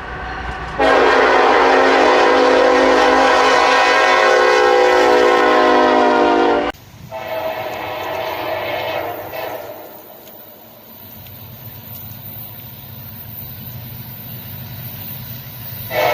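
Train horn sounding a long, loud, steady chord of several notes that cuts off suddenly, followed by a fainter horn note and a low rumble; another short horn blast comes near the end.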